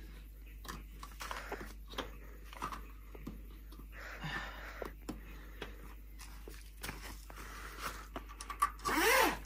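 Camper trailer canvas and fly screen being undone by hand: scattered soft rustles and clicks of fabric and fittings, with one short, louder rasp near the end.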